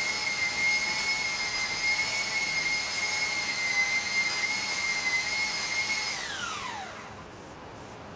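A high-speed power tool motor running with a steady high whine, then switched off about six seconds in, its pitch falling quickly as it spins down.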